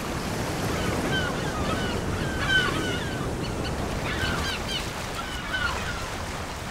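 A flock of gulls calling, many short cries overlapping, over a steady wash of sea water.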